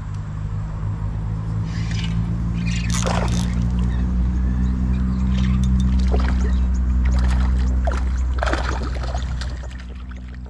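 A low engine hum that grows louder to a peak about the middle and fades near the end, with a few short water splashes.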